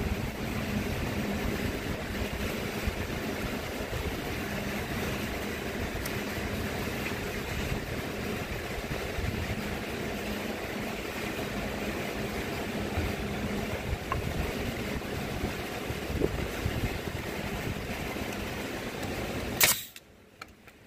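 Steady rushing of shop fans with a faint low hum, with a few light knocks of wood being handled. Near the end a single sharp shot of a pneumatic brad nailer driving a nail, after which the fan noise cuts off suddenly.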